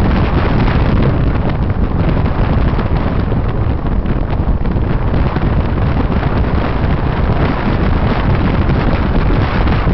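Steady loud wind noise on the microphone inside a moving car, with the car's engine and road noise underneath.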